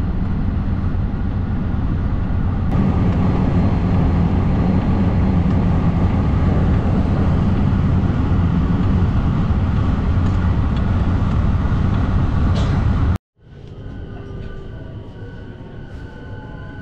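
Electric train running at high speed, about 140 km/h, heard from inside the passenger car: a loud, steady rumble of wheels on rail, mostly low in pitch. About 13 seconds in it cuts off abruptly to a much quieter interior with a few faint steady tones.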